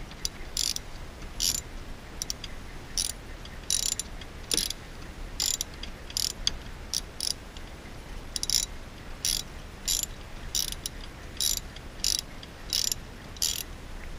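Hand socket ratchet clicking as it is swung back and forth to loosen the hold-down nut of a coil-on-plug ignition coil. Short runs of pawl clicks come every half second to a second, one with each back-stroke of the handle.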